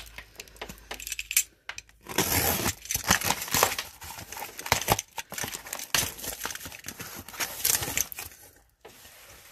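Packing tape on a cardboard box being slit with a box cutter and the box flaps pulled open: irregular scraping, tearing and crinkling of tape, cardboard and plastic wrap, busiest from about two seconds in.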